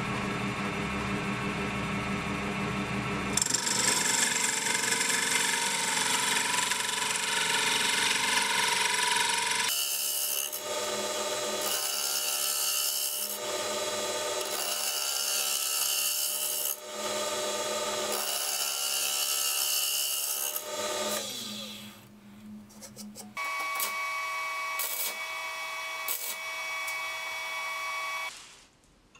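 Wood lathe spinning a wooden blank while a pivoting sphere-cutting jig's cutter scrapes into it. After about ten seconds the cut swells and fades roughly every two seconds as the tool is swung across the ball. Near the end it gives way to a steady hum with a few sharp clicks.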